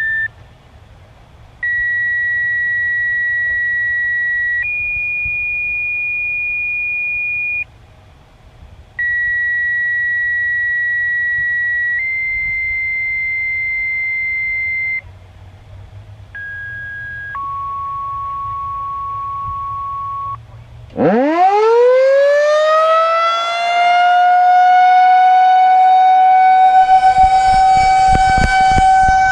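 A run of steady electronic tones, each held one to three seconds at a different pitch with short gaps between. Then, about two-thirds of the way in, a Federal Signal 2001-130AC single-tone outdoor warning siren winds up with a rising wail and settles into one steady, loud tone.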